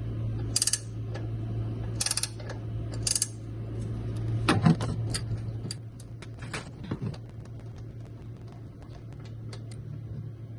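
Hand tool working the motorcycle's oil drain bolt loose: three short rasping bursts in the first three seconds or so, then a run of scattered light metallic clicks, over a steady low hum.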